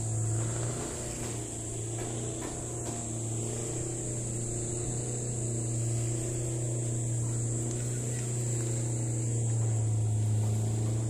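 A boat's engine running steadily, a low drone with wavering overtones, under a steady high hiss.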